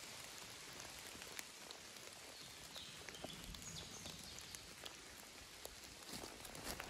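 Faint outdoor woodland background: a steady hiss with scattered small ticks, like drops or twigs in the leaf litter, and a few low bumps near the end.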